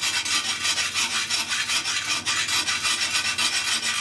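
A wet pumice stone rasping in quick back-and-forth strokes against the porcelain of a toilet bowl, grinding away limescale and ochre deposits.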